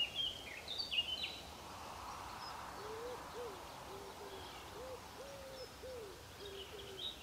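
Birds calling outdoors at dusk. Quick high chirps come in the first second or so and return near the end. From about three seconds in, a run of short, low calls repeats about twice a second.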